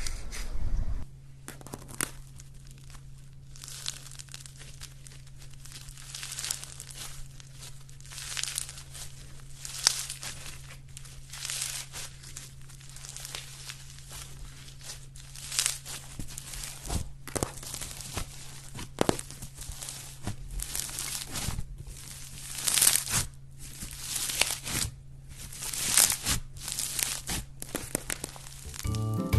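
White fluffy slime being stretched and squished by hand, giving irregular crackling, tearing sounds as it pulls apart and folds, over a steady low hum.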